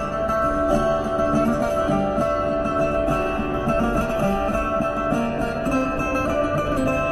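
A guitar-like string instrument laid flat across the lap, plucked and played as a continuous melody.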